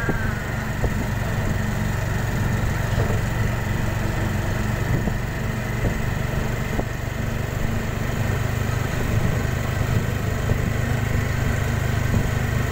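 Small motorcycle engine running steadily while riding along, with road and wind noise.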